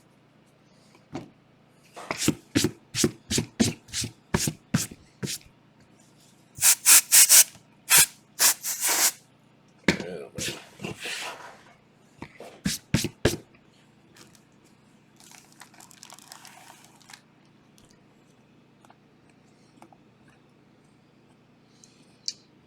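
Trading card packs being opened and the cards handled: a run of sharp clicks about three a second as cards are flipped one by one, then louder crinkling and rustling bursts, with a few more clicks before it goes faint.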